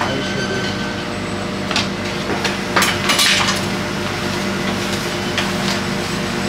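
Metal pizza pans clanking as they are gripped and lifted with a pan gripper at a conveyor pizza oven, several clatters with the loudest around three seconds in, over a steady machine hum.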